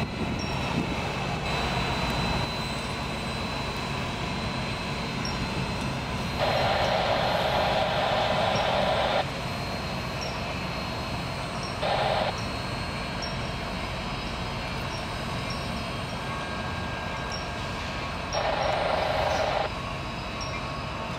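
Siemens Charger-type diesel locomotive running as the train set creeps forward, with a steady low rumble. A loud hiss comes three times: for about three seconds starting some six seconds in, briefly about twelve seconds in, and again for over a second near the end.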